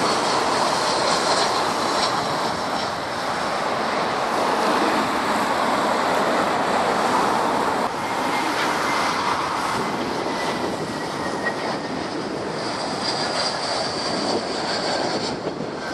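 Steady jet noise from Airbus A320-family airliners flying low on final approach to land, loud and continuous, with a faint engine whine coming through in the second half.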